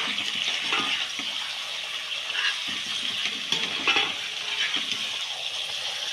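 Chicken pieces sizzling steadily as they fry in a pan, stirred now and then with a few soft scrapes against the pan.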